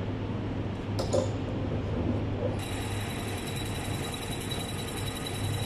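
Milling machine running with a steady low hum, a click about a second in. About two and a half seconds in, a steady high whine and hiss start suddenly as the spindle or cut gets going.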